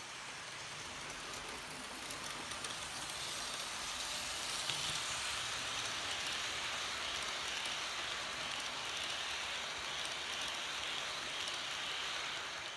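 H0-scale model express train rolling past on the layout's track: a steady rushing rattle of the coaches' wheels, growing louder from about two seconds in as the coaches pass close by, with faint clicks over the rail joints.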